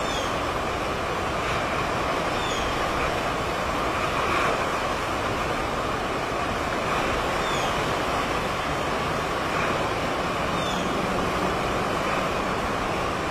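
Steady rushing of strong hurricane wind and choppy waves on the bay, with a few faint, short, high descending squeaks scattered through it.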